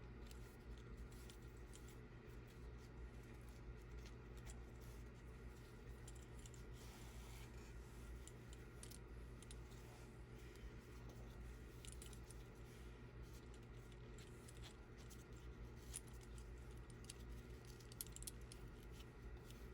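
Faint scattered clicks and scratching from small handwork, over a steady low electrical hum.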